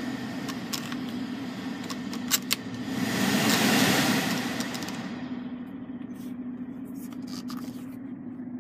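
BMW 5 Series climate-control blower rushing louder as the fan-speed knob is turned up, peaking about four seconds in and then falling back, with clicks from the dashboard knobs and a steady hum beneath.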